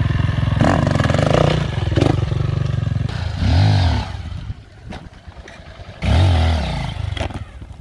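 Small dirt-bike engine running steadily, then revved twice in short throttle blips that rise and fall in pitch, about a third of the way in and again near two-thirds, dropping back to a low idle between them.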